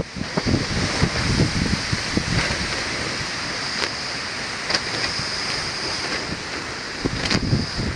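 Wind buffeting the microphone in irregular gusts, with a steady high-pitched hiss underneath and a few faint clicks.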